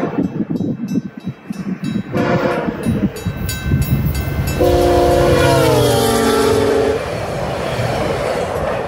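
Passenger train approaching and passing over a steady rumble, its locomotive's horn sounding a chord of several notes: a short blast about two seconds in, then a long, loud blast that falls in pitch near its end before cutting off.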